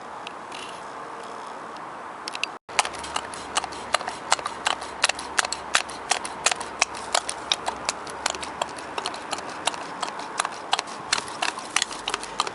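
Homemade hand-operated oil extractor, a shampoo-bottle pump head on a thin tube in the dipstick tube, clicking and ticking irregularly, about three or four clicks a second, as it draws the last of the engine oil out. Before the clicking, about two and a half seconds in, the sound drops out briefly.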